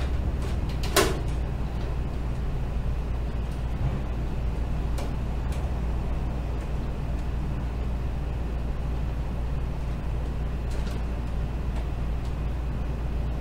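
A steady low hum, with one sharp click about a second in and a couple of fainter clicks later.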